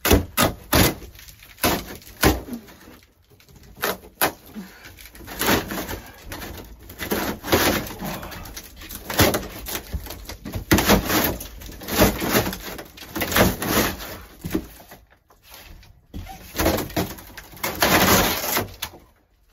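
Thin camper ceiling panel being pried and pulled down from the wooden roof framing: repeated cracks, creaks and scraping bursts as it tears loose.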